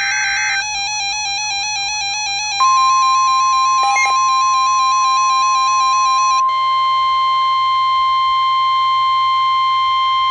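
Electronic background music. A short data-like burst of the alert header ends just after the start. About two and a half seconds in, a steady high-pitched alert tone begins over the music: the Emergency Alert System attention signal, the weather-radio warning tone that comes before a flood warning. The music drops out about six seconds in, and the tone runs on alone until it cuts off.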